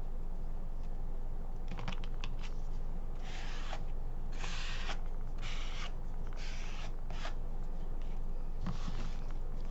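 Hands handling craft materials on a work table: a few light clicks, then a series of short rustling, rubbing strokes about a second apart, over a steady low hum.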